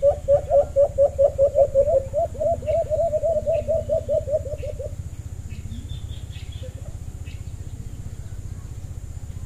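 Caged alimokon decoy dove calling a fast run of short, slightly rising notes, about four or five a second, which stops about five seconds in. Small birds chirp faintly.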